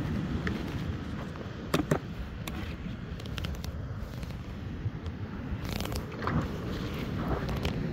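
Steady low rumble of wind on the microphone over handling noises of fishing gear. Two sharp knocks come close together about two seconds in as the plastic cooler-box lid is shut, and a brief rustle follows near six seconds as a hand goes into a bucket.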